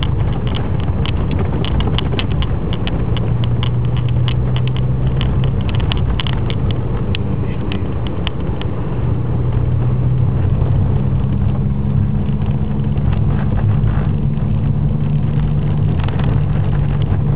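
Car engine and tyre noise on packed snow, heard from inside the cabin: a steady low hum that grows a little louder about halfway through as the car picks up speed. Irregular sharp clicks and crackles run through the first half.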